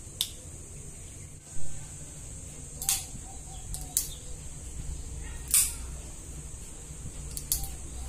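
Folding knife being flicked open and closed by hand: a handful of sharp clicks of the blade snapping into place, a second or so apart, with one louder handling thump about one and a half seconds in. A steady high hiss runs underneath.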